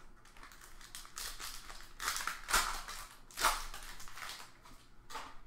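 Foil trading-card pack wrapper crinkling and tearing open in the hands, in a run of crackly rips, the loudest about two and a half and three and a half seconds in.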